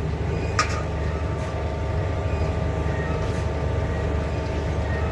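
Rotary rack oven running as it heats up after start-up: a steady low mechanical drone with a few faint humming tones, and a single click about half a second in.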